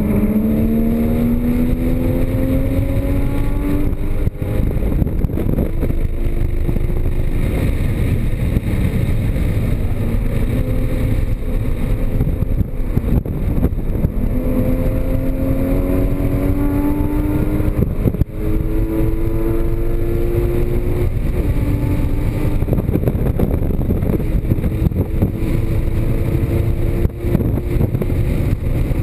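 Porsche Cayman GTS flat-six engine being driven hard on a race track. Its pitch climbs again and again as the car accelerates, and drops at each break for a shift or a lift into a corner, over a heavy low rumble.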